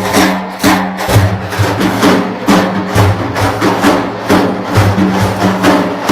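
Hand drums playing a steady rhythm of about two to three strokes a second, each with a deep ringing low tone, with no singing.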